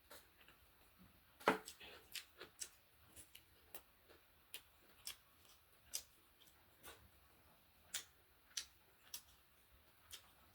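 Eating sounds: irregular sharp clicks and smacks of chewing and handling food, about one or two a second, the loudest about a second and a half in.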